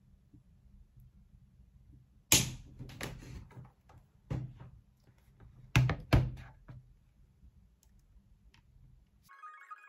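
Bowls, a spoon and other things being set down on a hard tabletop: a sharp clack about two seconds in, then a few more knocks and clatters, over a low hum. Soft plucked music starts near the end.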